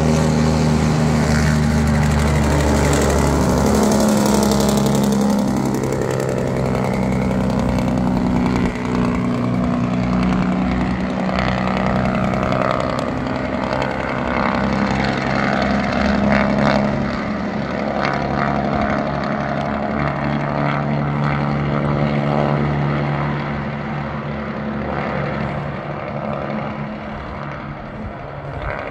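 Diesel semi-truck's engine brake working on a steep downhill grade: a loud, steady, droning exhaust note that eases off near the end.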